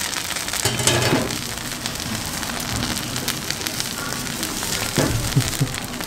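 Oil sizzling with fine, steady crackling under a large beef-stuffed flatbread as it fries on a flat griddle pan.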